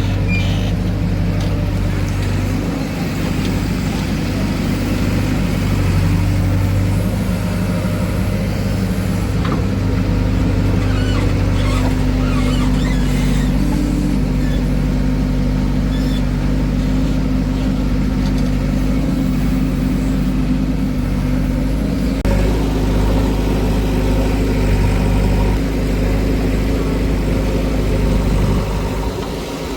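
Heavy diesel machinery running: a steady engine drone whose pitch and load shift now and then, with a few faint short clanks.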